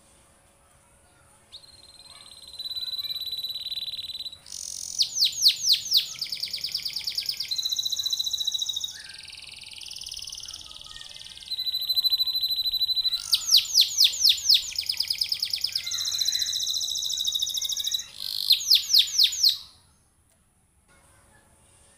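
Domestic canary singing a long song. Steady high trills alternate with rapid runs of falling notes, and a lower, buzzier passage comes midway. The song starts about a second and a half in and stops a couple of seconds before the end.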